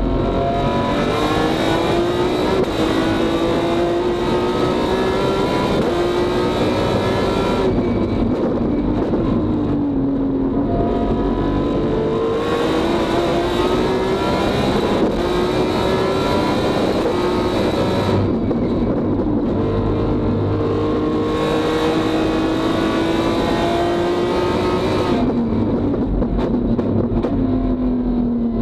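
BMW S54 straight-six in an E36 race car, heard from the cockpit, pulling hard with the revs climbing in steps through quick sequential-gearbox upshifts. Three times the revs fall away and the intake hiss drops out as the driver lifts and brakes for a corner, then it pulls through the gears again.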